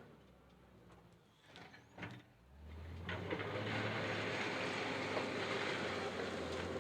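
JCB 426ZX wheel loader's diesel engine running low and quiet with a few clicks, then revving up about two and a half seconds in and running steadily at higher revs.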